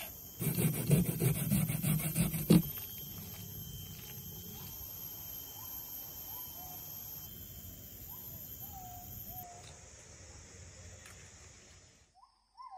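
Rapid knife chopping of oyster mushrooms on a wooden cutting board for about two seconds, many quick strokes. After it a bird calls a series of short, slightly sliding notes over a steady outdoor background.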